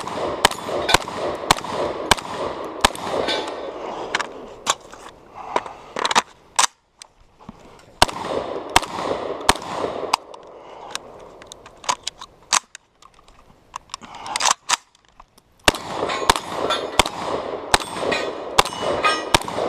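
Fostech Origin 12 semi-auto shotgun firing rapid strings of shots, several a second, with two pauses in the firing, one about six seconds in and a longer one about eleven seconds in. The shooter reckons the run held three jams.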